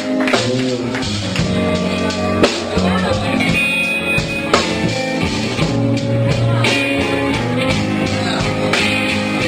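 Band music: guitar over bass and drum kit in an instrumental passage.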